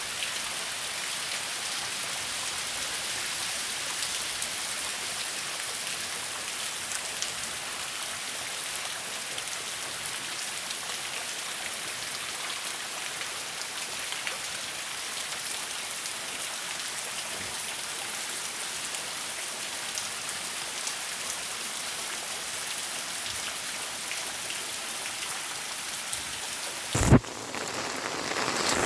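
Heavy rain falling steadily, a dense even hiss of drops. Near the end there is one sudden loud thump, after which the rain sounds louder.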